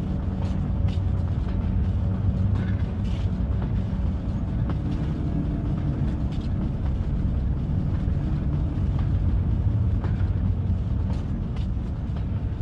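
Diesel locomotive hauling a freight train, its engine giving a steady low rumble with a few scattered faint clicks.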